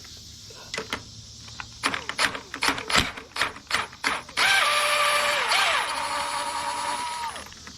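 Irregular metal clicks of a socket and tool on a 17 mm bolt, then a power impact gun runs for about three seconds, its motor whine gliding in pitch as it spins the bolt out.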